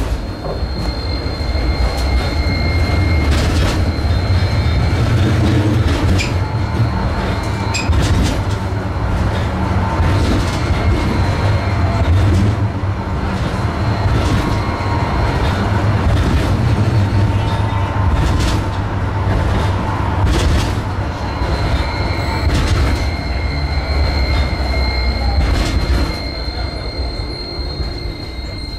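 Tram running on its track: a steady low rumble with irregular sharp clicks of wheels over rail joints. A high steady whine is heard at the start and again from about 22 seconds in, and the sound gets quieter near the end.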